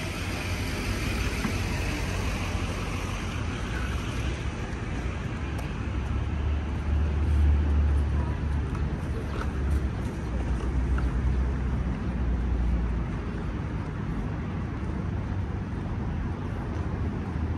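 City street traffic: a steady hum of passing vehicles, with a low rumble that swells about six seconds in and eases off around thirteen seconds.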